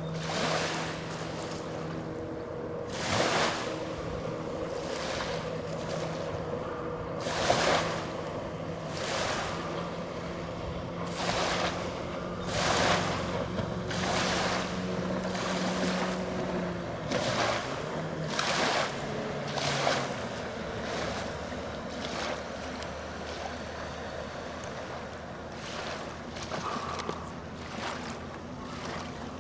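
Distant Mercury outboard on a Boston Whaler Dauntless 17 running steadily, its note falling about two-thirds of the way through as the boat slows. Small waves splash against the shore every second or two, louder than the engine.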